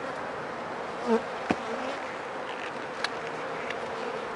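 Honeybees buzzing steadily around an opened hive. About a second in, one buzz swells loud and briefly, like a bee passing close. Two sharp clicks follow, a little after that and about three seconds in.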